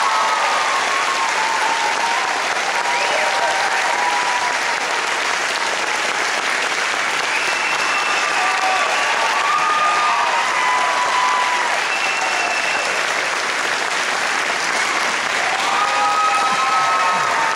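Large audience applauding steadily, with scattered cheering voices over the clapping.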